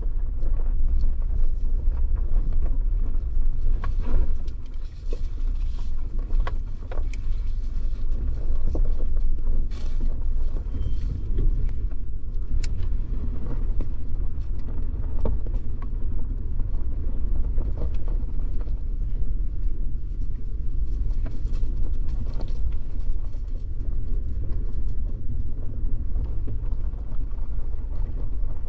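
Suzuki Jimny driving off-road: a steady low engine and road rumble, with scattered knocks and clicks over it.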